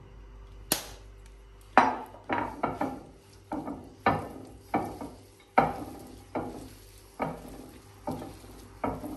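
Hands tossing and squeezing shredded raw vegetables dressed with teriyaki sauce in a ceramic bowl: short rustling, squelching handfuls, about one and a half a second. A single sharp click comes just before the mixing starts.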